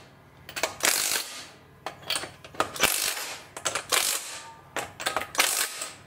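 Impact wrench hammering lug nuts down onto the wheel studs in several short bursts, each under a second, with pauses between as it moves from nut to nut.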